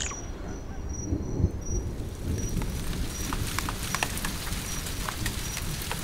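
Heavy rain in the rainforest with thunder rumbling low. From about two seconds in, more and more sharp drips patter, and a faint high chirp repeats about twice a second.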